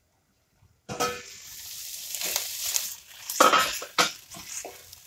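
After about a second of silence, sliced onions sizzling gently in oil in a stainless steel pan as a silicone spatula stirs them, with several sharp knocks of the spatula and pan.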